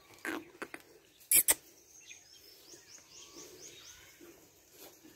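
Two loud, sharp knocks about a second and a half in, after a few fainter clicks, then small birds chirping faintly in quick runs of short, high, falling notes.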